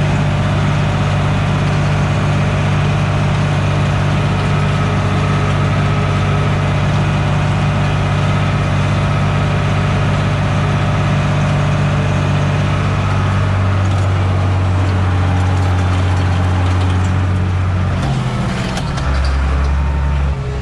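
Fendt Favorit 611 LSA's six-cylinder diesel engine running steadily under load while pulling a seed drill, heard from inside the cab. Near the end the engine note drops as the revs come down.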